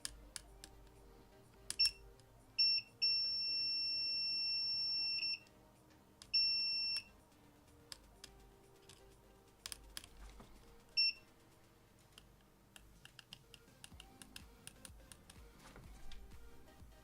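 Continuity beeper of a multimeter sounding as probe tips touch the circuit board: two short chirps, a long held beep of about two and a half seconds, a shorter held beep and a brief one, all at the same high pitch, with small clicks of the probes between. Each beep signals a connection between the probed points. Faint music plays underneath.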